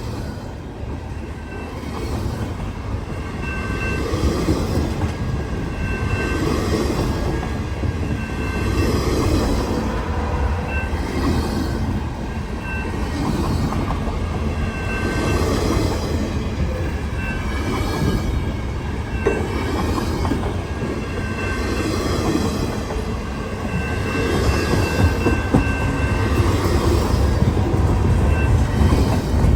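Freight train cars rolling past on the rails, their wheels knocking in a repeating pattern about every two seconds, with brief high squeals from the wheels now and then.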